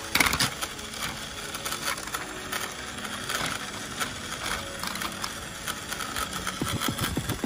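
Battery-powered Plarail Panda Kuroshio toy train running on blue plastic track: its small electric motor whirring, with gears and wheels rattling. There is a sharp click about a quarter second in.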